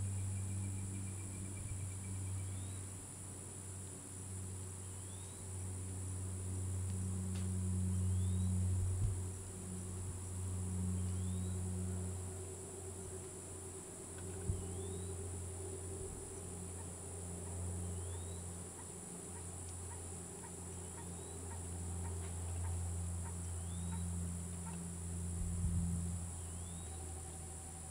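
Insects droning steadily at a high pitch, with a bird repeating a short rising note about every two seconds. A louder low droning hum swells and fades underneath, and there is a single sharp click about halfway through.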